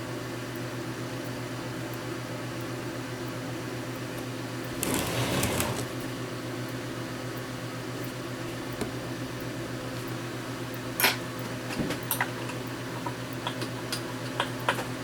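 Steady electrical hum of a UV curing lamp running while it cures the LOCA glue under a phone's new front glass. A brief rustle comes about five seconds in, and a few light clicks and taps come in the last few seconds.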